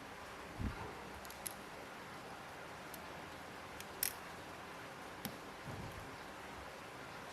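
Small tools and phone parts being handled on a repair bench: scattered light clicks, the sharpest about four seconds in, and a few soft knocks over a steady background hiss.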